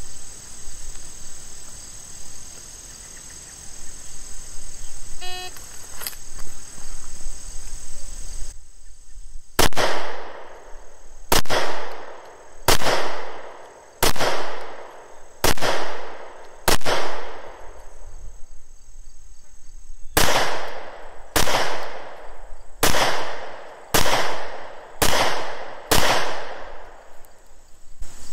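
A short electronic beep from a shot timer about five seconds in. Then twelve shots from a Smith & Wesson SW99 pistol in .40 S&W, fired as two strings of six with a pause of about three seconds between them, the second string a little quicker. Each shot rings out briefly.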